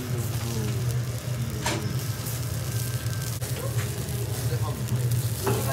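Skewered whole fish grilling on a wire mesh over charcoal with a faint sizzle, under a steady low hum and indistinct background voices. A couple of short clicks come about two seconds in and near the end.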